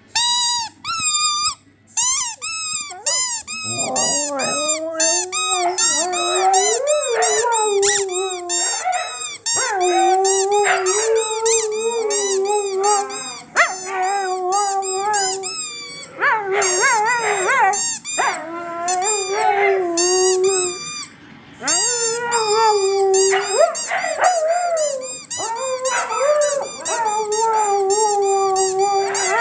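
A squeaky toy squeaked rapidly over and over, while Siberian huskies howl along in long, wavering howls that start a few seconds in.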